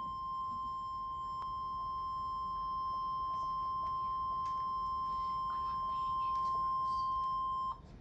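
NOAA Weather Radio warning alarm tone: a single steady, high beep, held without a break and cutting off near the end. It is the alert that comes before a broadcast severe weather warning, heard through a laptop speaker.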